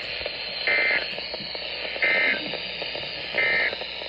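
Three short buzzing bursts of Emergency Alert System SAME digital data tones from a NOAA Weather Radio broadcast, about a second and a quarter apart, over steady radio static: the end-of-message code that closes a severe thunderstorm warning.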